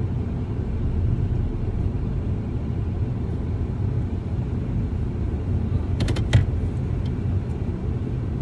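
Low, steady car rumble heard from inside the cabin as the car drives slowly forward. About six seconds in come a few sharp clicks, the loudest moment.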